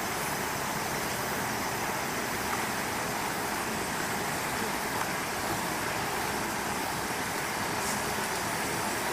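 Steady, even background rush with no distinct events.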